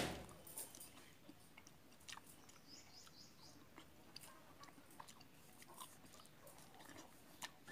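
Faint, soft chewing of ripe papaya, with scattered small wet mouth clicks.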